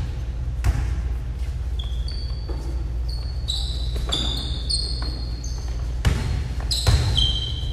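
Basketball bouncing on a hardwood gym floor with sharp thumps, the loudest near the end, while sneakers squeak in short high chirps on the boards. A low steady hum runs underneath.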